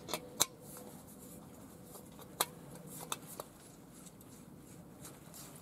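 A few short, sharp metal clicks from handling a screw-on gas canister stove and working its folding pot-support arms, the loudest about two and a half seconds in, with faint background hiss between them.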